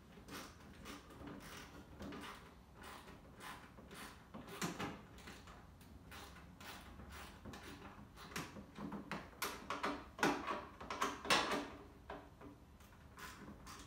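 Plastic wheel-well liner and trim of a Jeep Renegade being worked by hand, giving an irregular run of sharp plastic clicks and knocks. The clicks come thicker and louder in the last third.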